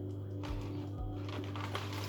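Background music with a steady beat, about two beats a second, with a few light clicks over it.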